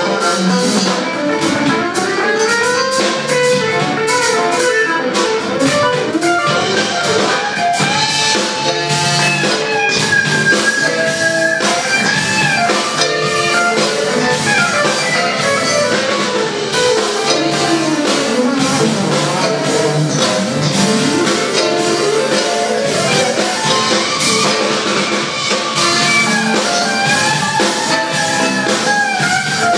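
A live smooth-jazz band playing: an electric guitar takes the lead with bending, gliding melodic lines over drum kit, bass and keyboards.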